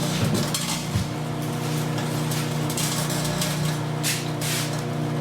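Microwave oven running with a steady hum, with irregular crackling bursts from a welding rod arcing inside it. A couple of dull knocks in the first second.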